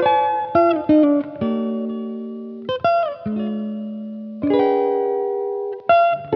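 Background music: a clean electric guitar playing slow chords and single notes, each left to ring out, with sliding notes.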